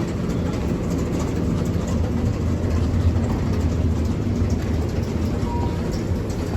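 Steady low mechanical rumble, like a vehicle or machinery running, with no clear events.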